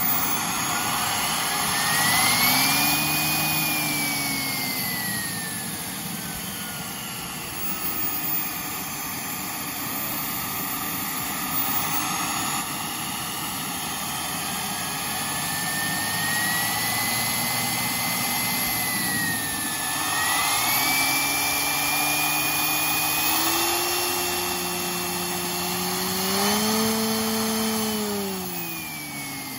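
Model turboprop engine of a large RC Pilatus Porter running on the ground: a steady turbine rush with a high whine. The engine speed rises and falls a few seconds in, then climbs slowly through the second half and drops away near the end.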